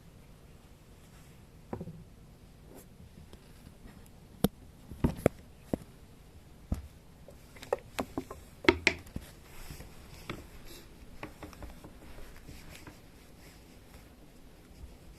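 Kittens moving about the room, making scattered light taps, clicks and knocks that bunch together from about four to eleven seconds in.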